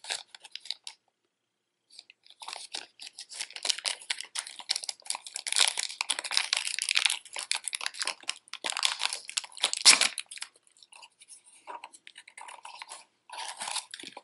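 A thin clear plastic bag crinkling as it is handled and opened by hand. The dense crackling lasts about eight seconds, then gives way to lighter, scattered rustles near the end.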